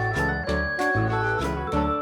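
Instrumental closing-credits music led by an organ-like keyboard, with a bouncing bass line and a steady beat.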